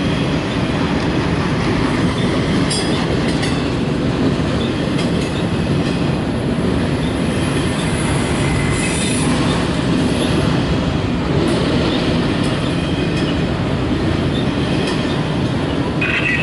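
Loaded autorack freight cars rolling past: a steady noise of steel wheels on rail, with occasional clicks.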